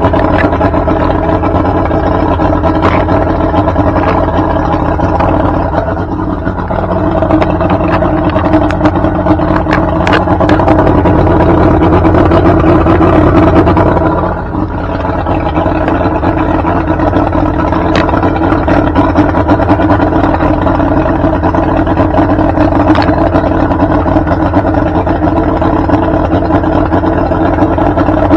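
Mercury Black Max 135 hp oil-injected two-stroke V6 outboard running steadily out of the water on a garden-hose flush hookup, warming up after a cold start and smoking from the exhaust. Its level dips briefly twice, about six and fourteen seconds in.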